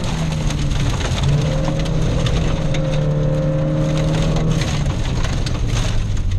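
Rally car's engine running hard, heard inside the cabin, over the crunch of gravel under the tyres and the rattle of stones thrown against the underbody. The engine note holds steady, then drops in pitch about five seconds in.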